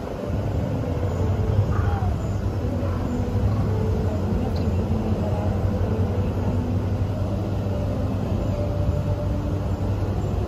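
Steady low rumble of ambient background noise, with a few faint, brief higher sounds over it.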